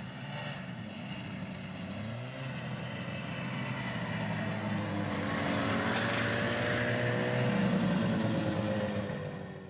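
1974 Roll-O-Flex Wild One snowmobile's two-stroke engine running, its pitch rising and falling, getting louder in the second half and fading out near the end.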